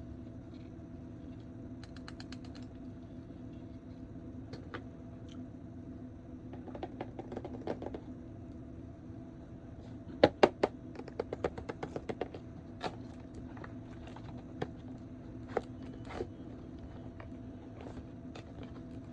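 Light clicks and taps of plastic being handled, over a steady low hum. A quick run of louder clicks comes about ten seconds in.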